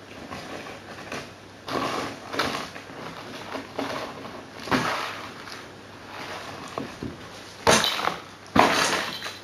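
Irregular rustling, scraping and knocking of objects being handled and moved about, with two sharper, louder knocks near the end.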